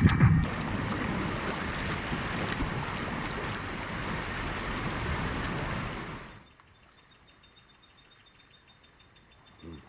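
A steady rushing noise, like wind or moving water, that cuts off abruptly about six seconds in, leaving near silence with a faint, thin, high steady tone.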